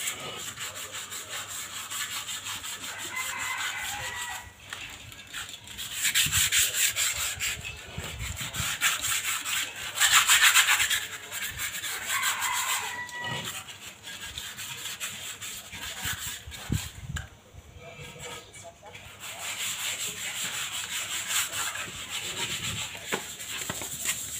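Cement flower pots being scrubbed by hand: a fast, even run of rasping strokes, louder for a spell about six seconds in and again about ten seconds in.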